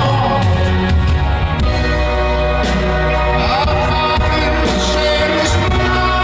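Live rock band and orchestra playing together, amplified over a stage PA and heard from within the audience.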